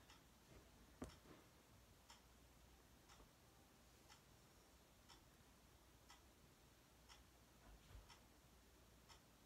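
Faint, steady ticking of a clock, about once a second, in a quiet room. There is a slightly sharper click about a second in and a soft low thump near the end.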